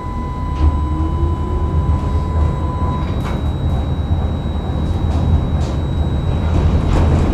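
Inside a moving tram: the low rumble of the running gear grows louder as the tram gains speed, with a motor whine climbing in pitch over the first couple of seconds. A steady high tone cuts off about three seconds in, and after that the wheels click now and then over the rails.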